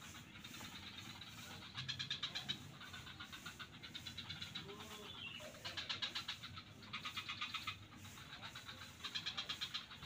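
Frogs calling: repeated bouts of rapid clicking pulses, each just under a second long, four bouts a few seconds apart over a steady low background.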